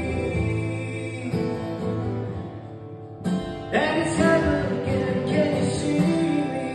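Acoustic guitar strummed live, with a man singing over it. The playing drops away briefly about three seconds in, then comes back louder.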